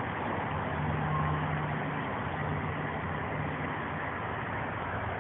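A steady low mechanical hum over an even hiss of background noise, with no sudden sounds.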